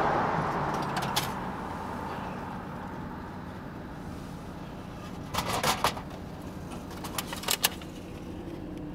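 Food vending machine dispensing a purchase over a steady low hum. A rushing noise fades over the first couple of seconds. Sharp clicks and clatters come about five and a half seconds in and again about seven seconds in, as the pickup flap is handled and a plastic clamshell food pack is taken out.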